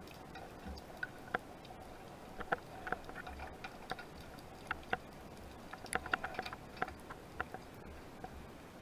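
Underwater sound of scattered, irregular sharp clicks and ticks over a faint steady hiss, with a quick cluster of clicks about six seconds in.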